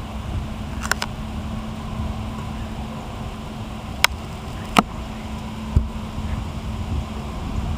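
Steady low rumble of wind on the microphone with a faint constant hum, broken by a few short sharp clicks: a pair about a second in, then single ones about four, five and six seconds in.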